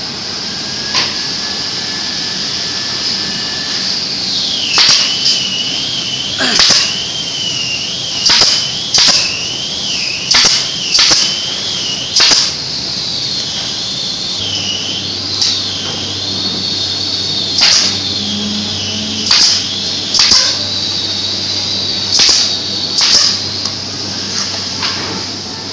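Pneumatic nail gun firing into plywood joints: sharp single shots every second or two, about fourteen in all, over a steady high hiss and a wavering whine.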